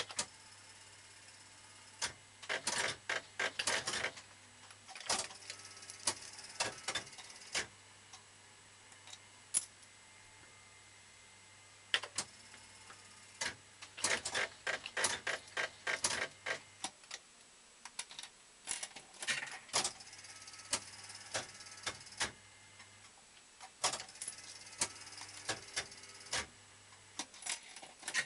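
Super Nudge Gambler 2 fruit machine being played: irregular bursts of rapid mechanical clicking from its reels and buttons, several clicks at a time with short pauses between, over a low steady hum.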